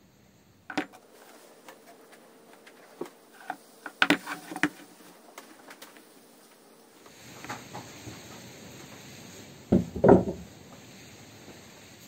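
Brake master cylinder and its plastic reservoir handled on a wooden workbench: scattered clicks and light knocks as the parts are pressed together, with the loudest knocks about ten seconds in.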